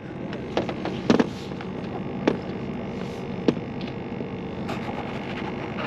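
A steady hum with several short, sharp clicks and knocks, as of fishing gear being handled on an aluminium boat.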